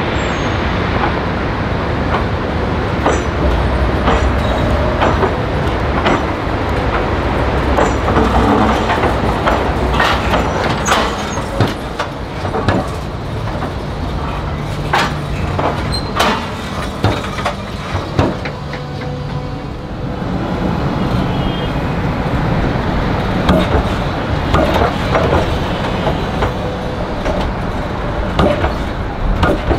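Electric tram rolling past at low speed, its steel wheels knocking and clattering irregularly over the joints of a portable crossover bolted on top of the existing track, with a steady running rumble underneath.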